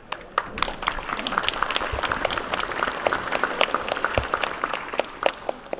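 A crowd of seated children applauding: dense, irregular hand-clapping that thins out near the end.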